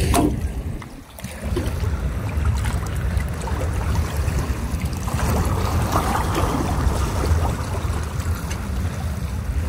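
Seaside wind rumbling on the microphone, with water washing and lapping on the shore. A brief louder knock comes right at the start.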